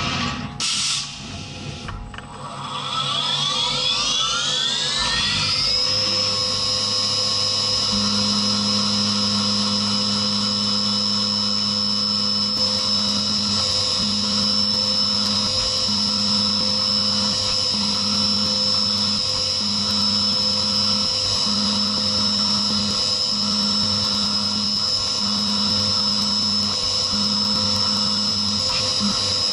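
CNC mill's spindle spinning up with a rising whine over the first few seconds, just after a few sharp clicks of a tool change, then holding a steady high whine as it mills aluminium under coolant. From about 8 seconds in, a lower hum cuts in and out every couple of seconds.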